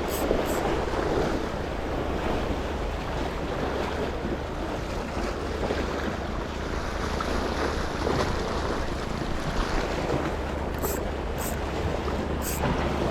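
Wind buffeting the microphone over the sound of sea water, a steady rush with a low rumble and a few faint ticks near the start and end.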